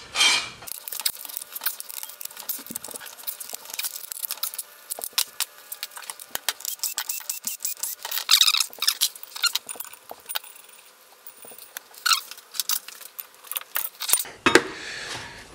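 Light metallic clinking and jingling, a string of small sharp clicks, as the loosened steel flywheel bolts and hand tools are handled.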